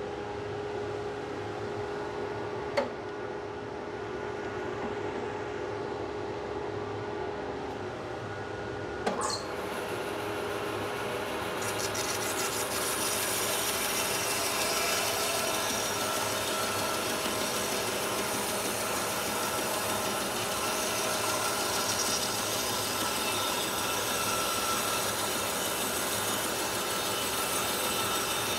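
Bandsaw running with a steady hum, a sharp click about three seconds in; from about nine seconds in the blade cuts lengthwise through a thick, still-moist white oak round with bark on it, giving a steady sawing noise.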